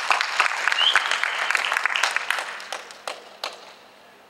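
Small audience applauding, thinning out to a few last separate claps about three seconds in.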